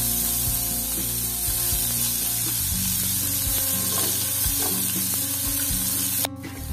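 Sliced red onions sizzling steadily in hot oil in a frying pan. A sharp click near the end, after which the sizzle drops away.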